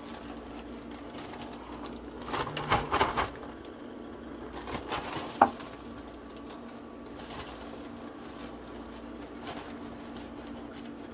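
Oil frying inside a closed tempura fryer pot, crackling and spattering in bursts over a steady low hum. The crackling is thickest about two to three seconds in and again around five seconds in, with one sharp pop.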